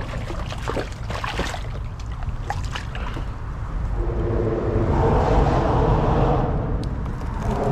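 Water splashing and slapping in short bursts as a hooked sheepshead is held at the waterline beside a paddleboard, over a steady low rumble of traffic on the bridge overhead. A steady hum sets in about four seconds in and fades near the end.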